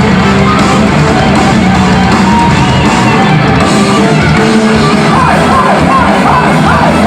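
Heavy metal band playing live, loud and dense throughout, with a wavering high line coming in about five seconds in.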